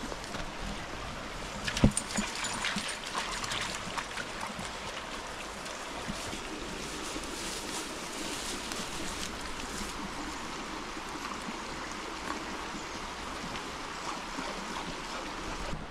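A shallow forest stream running over rocks, a steady rushing. There is a single sharp knock about two seconds in, followed by a couple of seconds of rustling and crackling.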